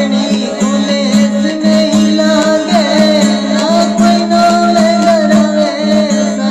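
Indian devotional folk bhajan music: a steady drone under a bending, held melody line, with percussion strokes keeping a regular beat.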